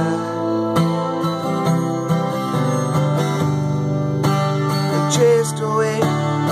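Steel-string acoustic guitar strummed in a steady rhythm, ringing chords, with a man singing along in places, most clearly near the end.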